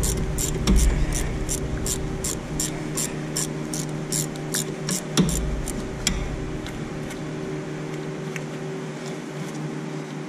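Ratchet wrench clicking about three times a second as it turns out the upper rear brake caliper bolt, the caliper's sliding pin. The clicking stops about six seconds in, leaving a few scattered metallic clicks over a steady low hum.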